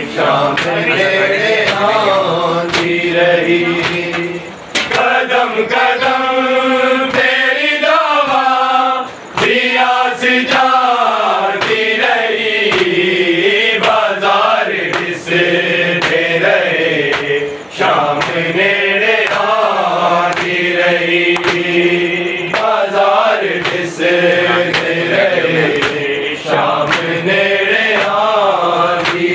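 Group of men chanting a noha lament together, with rhythmic slaps of hands on their chests (matam) cutting through the singing.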